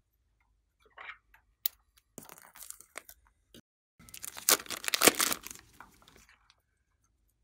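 Plastic piping bag of soft clay crinkling as it is handled, then a dense run of crinkling and squishing about four to six seconds in as the bag is torn open and the clay squeezed out.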